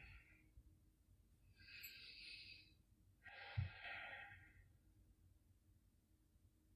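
A woman's faint, slow deep breaths: one breath about two seconds in and a second, longer one about a second later with a soft bump near its start.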